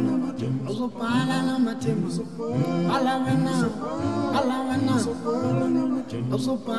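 Background music led by singing voices, with a male voice prominent.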